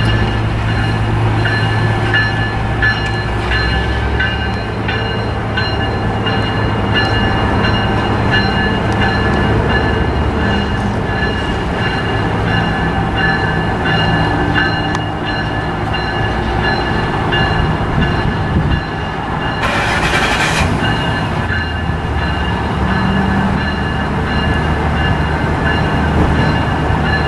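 Diesel switcher locomotive running at low throttle, a steady low engine drone, with high ringing tones struck at a regular beat through the first half. A short burst of hiss comes about twenty seconds in.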